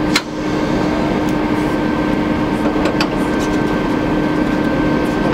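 TEP70BS diesel locomotive running at idle, a steady mechanical hum, with a sharp metallic click just after the start and another about three seconds in from the coupling work between the locomotive and the electric train.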